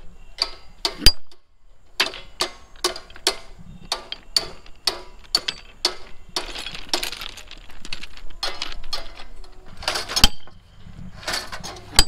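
Trackmen's steel hammer and crowbars striking the rail and its fastenings: a string of sharp, ringing metallic clinks, roughly two a second, with a rougher, noisier stretch about six seconds in.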